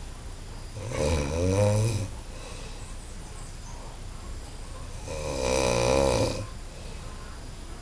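A person snoring very loudly: two long snores about four seconds apart, each lasting over a second.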